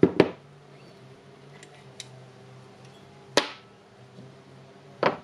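Sharp metallic clicks of small steel parts from an impact wrench's gearing, its gear pins and gears, being handled and set down: two quick clicks at the start, a louder one a little past halfway, another near the end, with fainter ticks between.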